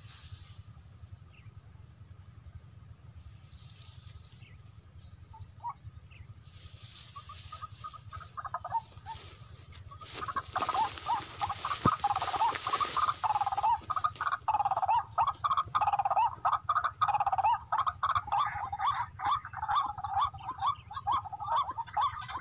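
Tikling (barred rail) calling: a fast run of short clucking notes that begins faint about seven seconds in and turns loud and almost unbroken from about ten seconds on.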